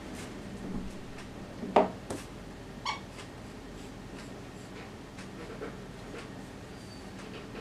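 Pencil drawing on paper, with a sharp knock about two seconds in, the loudest sound, and a short high-pitched squeak about a second later.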